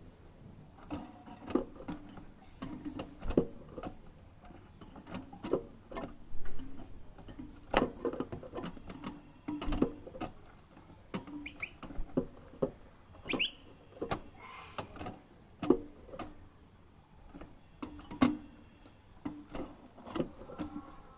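A young European goldfinch moving about its wire cage: irregular taps and knocks, some sharp and loud, with two or three brief faint chirps around the middle.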